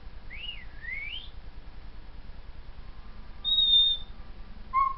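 African grey parrot whistling R2-D2-style beeps: two quick swooping whistles rising and falling, then a held high whistle about three and a half seconds in, the loudest, and a short lower note near the end.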